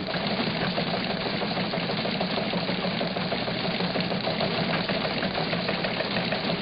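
Steady rushing roar of a large waterfall, even and unbroken.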